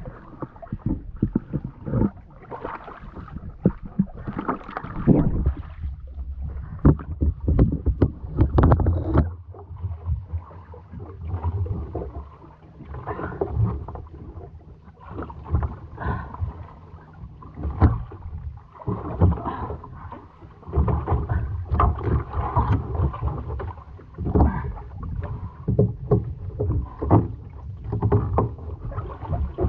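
Seawater sloshing and slapping against a small boat's hull in irregular bursts, with the splashes and knocks of a swimmer hauling herself out of the water onto the boat.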